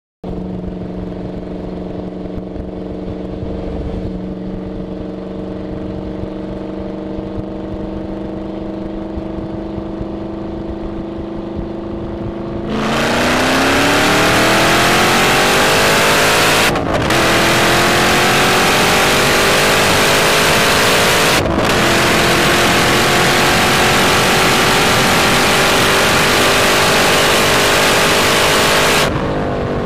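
Car exhaust at a steady idle, then revved and held at high revs from about halfway through, much louder and harsher, with the pitch climbing slowly. The sound dips sharply twice while held high, and the revs fall back near the end.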